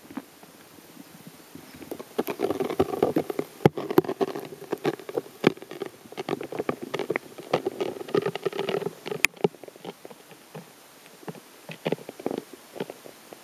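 Irregular clicking and crackling picked up underwater in a pond, dense and busy from about two to nine seconds in, then sparser, with a few sharp louder clicks.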